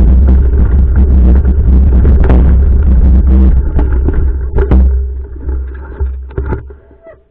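Vehicle driving, a loud steady low rumble with rattling and knocks over it, fading away over the last two seconds.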